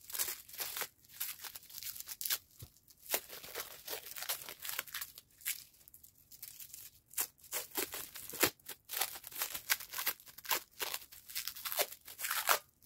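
Packaging wrapping being torn and crumpled by hand, a long run of irregular rips and crackles as the layers around a small item are pulled off.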